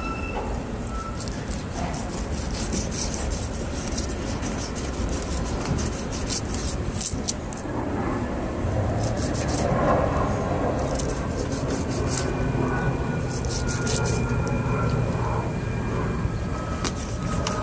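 Fillet knife sawing along the backbone of a whole striped bass with the scales still on, giving repeated crisp crackling and scraping clicks as the blade cuts through scales and rib bones, over a steady low rumble.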